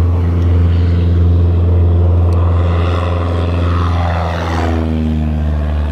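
Full-size single-engine high-wing light plane taking off at full power, its piston engine and propeller droning steadily; the pitch drops as it passes close by about four to five seconds in.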